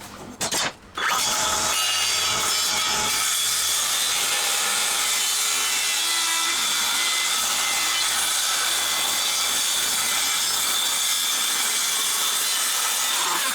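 Power saw cutting steadily through a timber ceiling panel. A brief burst comes first, then a continuous cut of about twelve seconds that stops abruptly as the blade goes through.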